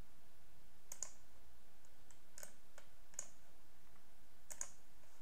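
Computer mouse clicking: a few sharp, separate clicks about a second apart, with a quick double click near the end.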